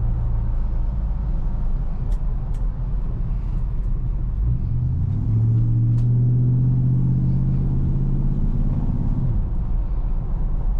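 1984 Chevrolet K10 Scottsdale pickup truck's engine running with a steady low rumble. From about five seconds in it gets louder for around four seconds, then eases back.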